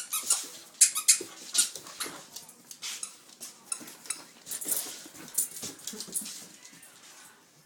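A dog chewing on a toy: irregular sharp crackles and snaps, loudest in the first few seconds and thinning out toward the end.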